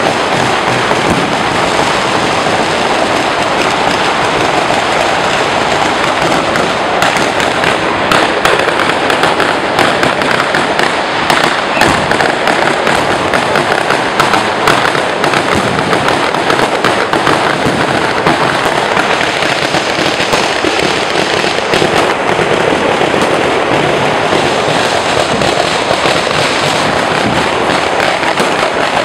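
Firecrackers going off in a dense, continuous rapid crackle of small bangs, unbroken throughout.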